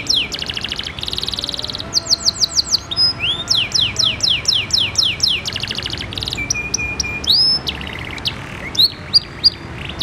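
Domestic canary singing a long, varied song in quick changing phrases: runs of fast downward-sweeping notes, rapid trills and buzzy rolls, and a short series of level whistled notes past the middle.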